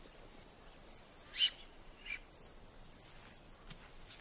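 Quiet bush ambience with short high chirps repeating about once a second, from insects or birds, and a brief louder call about one and a half seconds in.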